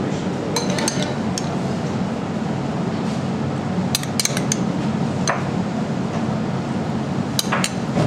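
A spoon clinking against a ceramic bowl and dish as filling is scooped out and spread onto steaks: scattered sharp clinks in small clusters, over a steady background hum.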